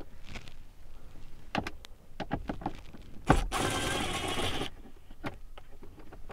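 Small handling clicks and taps, then a knock about three seconds in and a cordless screwdriver's motor running for just over a second before cutting off suddenly, backing out a dash trim screw.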